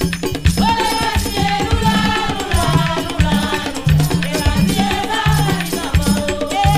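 Haitian Vodou song for Papa Legba: voices singing over a steady, repeating drum rhythm.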